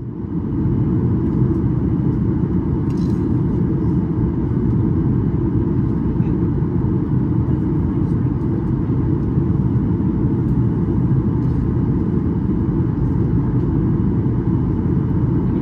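Steady low cabin roar inside a Boeing 737 MAX 8 airliner in flight: the noise of its CFM LEAP-1B engines and the airflow past the fuselage, heard from a window seat. It fades in over the first moment and carries a few faint ticks.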